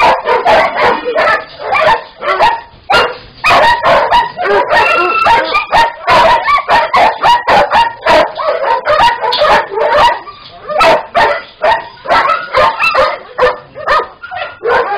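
Dogs in shelter kennels barking and yelping, many calls overlapping without a break; the din eases briefly about ten seconds in.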